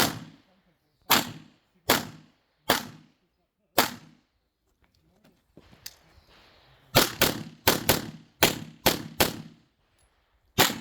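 Handgun shots fired in strings during a practical shooting stage: five shots about a second apart, a pause of about three seconds, then a faster run of eight shots.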